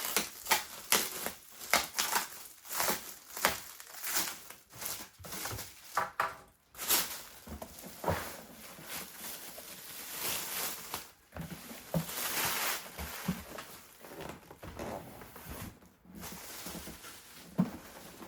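Packing material being handled and pulled off a boxed item: irregular crinkling and rustling with quick scrapes and knocks.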